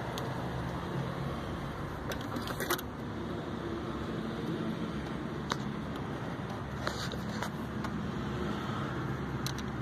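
Metal parts and tools clinking a few times as hands work on hoses and fittings in a car's engine bay, over a steady low hum.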